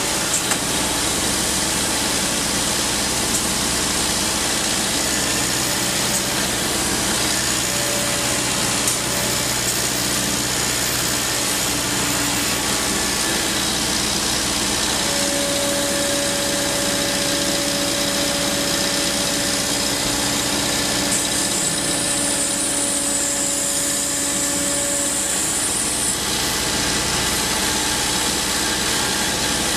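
Liebherr R 950 Demolition excavator's diesel engine and hydraulics running steadily. A steady whine holds for about ten seconds in the middle.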